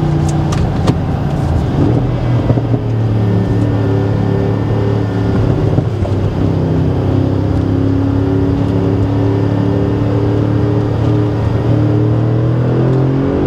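2018 Audi S6's twin-turbo V8 heard from inside the cabin, running under light throttle on a winding road, its note stepping in pitch a couple of times and climbing near the end as it accelerates. A few short clicks sound in the first second.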